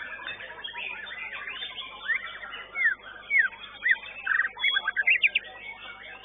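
White-rumped shama (murai batu) singing loud, sharp whistled notes that sweep up and down, starting about two seconds in and running into a quick string of rapid notes near the end. Beneath it, a busy chatter of other birds.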